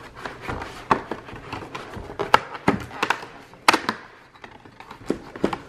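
Fingers prying at a perforated cardboard advent calendar door, making irregular sharp clicks, knocks and scratches on the cardboard.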